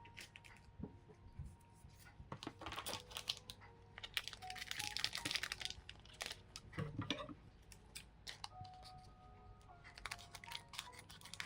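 Foil booster pack wrapper being torn open and crinkled, with many small clicks of trading cards being handled; the loudest crinkling comes about halfway through. Quiet background music plays underneath.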